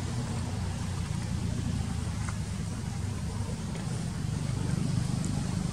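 Steady low motor drone, like an engine running, with a couple of faint clicks.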